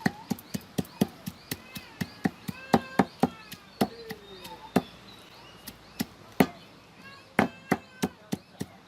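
Repeated sharp knocks of stone on stone, about two to four a second at an uneven pace: a hand-held batta striking a sil grinding slab to crush ingredients.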